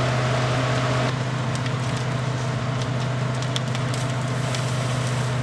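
A large fire crackling, with scattered sharp snaps and pops over a steady low hum. A faint steady tone stops about a second in.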